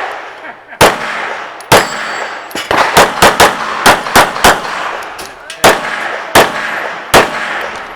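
Pistol fire in a timed IDPA stage: a string of about a dozen sharp shots, the first about a second in, with a quick cluster in the middle and uneven pauses between groups, each shot echoing briefly.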